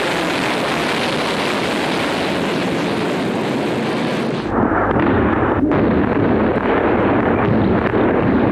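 Steady roar of a ship-launched cruise missile's rocket booster at lift-off. About four and a half seconds in it gives way to a duller, deeper rumble of explosions.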